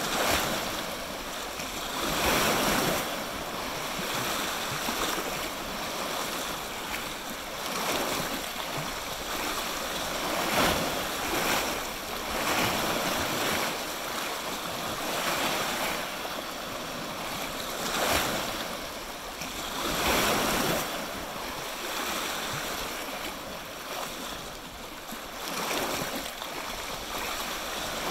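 Waves of Lake Superior washing onto the shore over a steady rush of water, each wave swelling and fading every few seconds.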